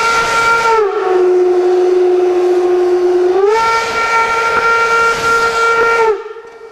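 Steam whistle of the class 24 steam locomotive 24 009 blowing one long blast. For a couple of seconds in the middle it sounds at a lower pitch, then it goes back to its first, fuller tone and cuts off sharply about six seconds in.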